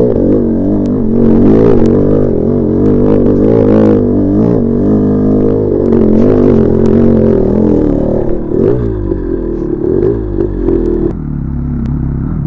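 Two-stroke single-cylinder engine of a freshly rebuilt 1986 Maico MStar 500 dirt bike being ridden during break-in, its revs rising and falling, with scattered clatter. About eleven seconds in the sound drops to a lower, steadier engine note.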